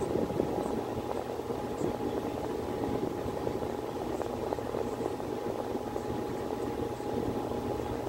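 Miller E2 series furnace running in heating mode: a steady rush of moving air from the blower, with a low hum and a thin, constant whine above it.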